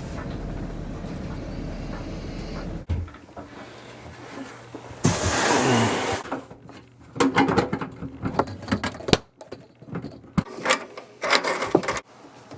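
Steady low road rumble inside a moving vehicle, cut off suddenly about three seconds in. A loud rushing burst of about a second follows, then a run of uneven clattering knocks.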